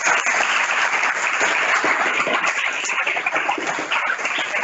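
Audience applauding, dense clapping from many hands.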